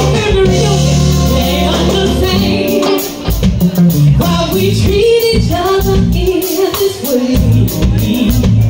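Live band performing: a woman sings into a microphone over keyboard and drum-kit backing, amplified through the PA in a large room.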